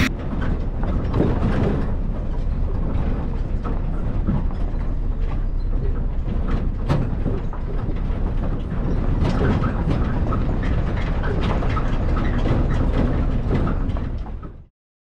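Moving vehicle's rumbling road noise with many small rattles and clicks, as from a ride over rough ground; it cuts off suddenly near the end.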